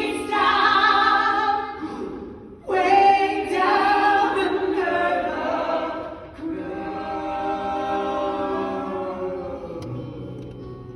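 Stage-musical ensemble voices singing long held notes in harmony. The chord breaks off briefly about two and a half seconds in, the singers come back in on new sustained notes, and the last chord thins out and fades near the end.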